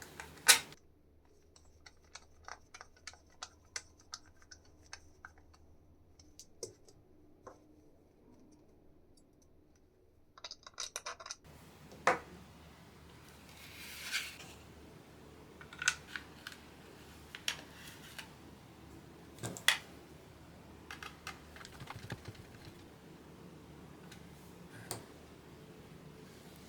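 Irregular sharp clicks and taps from small keyboard parts being handled during assembly, coming singly or a few close together with pauses between. The background hiss changes abruptly a little under halfway in, as if at a cut.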